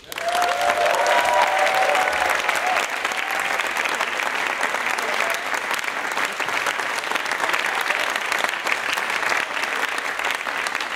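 Theatre audience applauding, breaking out suddenly and keeping up steady clapping, with a few voices calling out over it in the first few seconds.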